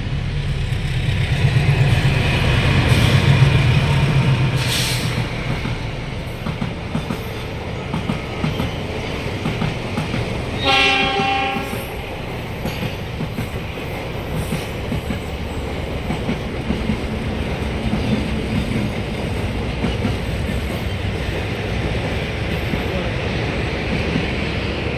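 Long passenger train passing close by: steady rumble of wheels on the rails with scattered clicks, loudest in the first few seconds. About eleven seconds in, one horn blast lasting about a second.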